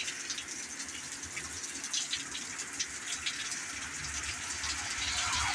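Hurricane rain pouring steadily, an even hiss with many small drips and splashes through it. A low rumble builds toward the end.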